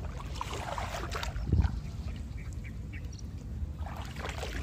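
Floodwater sloshing and splashing as a gill net is hauled by hand through a flooded rice field, under a steady low rumble, with one dull thump about a second and a half in.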